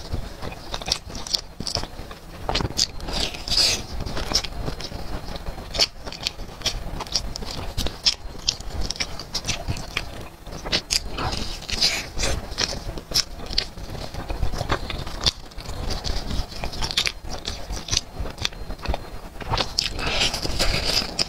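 Close-miked crunching and chewing of crispy breaded fried chicken: a steady run of crackly bites with chewing between them.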